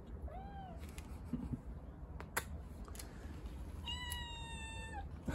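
A long-haired black-and-white kitten meowing: a short call near the start, then a longer, high-pitched meow about four seconds in that holds steady and drops slightly at its end. A couple of sharp clicks come between the two calls.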